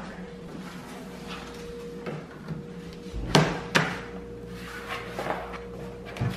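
Two sharp knocks about half a second apart, over a faint steady hum, with lighter knocks and rustling around them.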